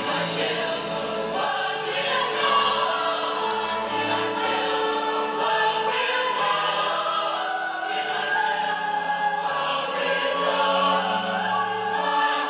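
Background music: a choir singing sustained, held notes over a moving bass line.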